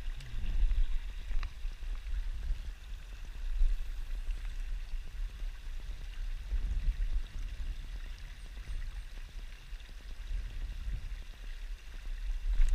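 A small rocky river running over stones, under a low, uneven rumble.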